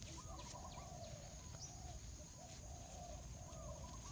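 Faint clucking of chickens, short rough calls repeating one after another. Under it run a steady thin high insect whine and a few short falling chirps.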